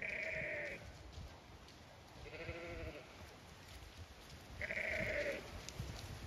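Sheep bleating three times, each call under a second long and spaced about two seconds apart.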